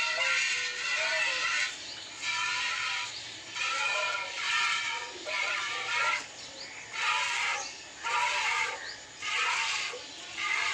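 Streams of milk from a water buffalo being hand-milked, hissing into a steel bucket in spurts about once a second, the pail ringing with each spurt.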